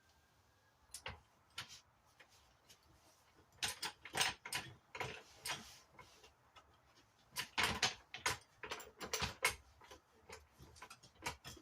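Irregular clicks and light metallic knocks as a floor jack is handled and set under the car. They come in two clusters, a few seconds apart.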